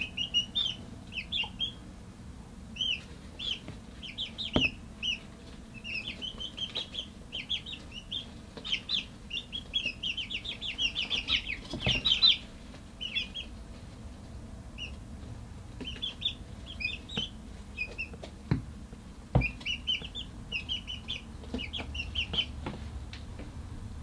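Young chickens peeping and chirping in quick runs of short high calls, with a few brief pauses. A few dull knocks sound in between.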